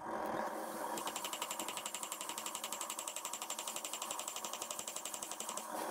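Rapid, even hammering on the hot copper-nickel mokume gane billet on the anvil, about ten blows a second, flattening the ground-in ladder ridges to bring the layers to the surface.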